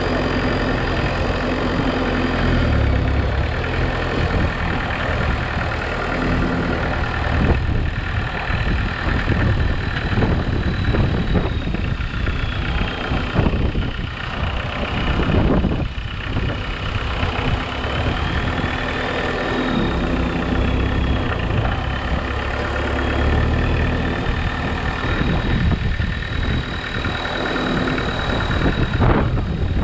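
Homemade 4x4 tractor's engine running steadily as it is driven with a loaded front-loader bucket, with a high whine over the engine that dips and rises in pitch.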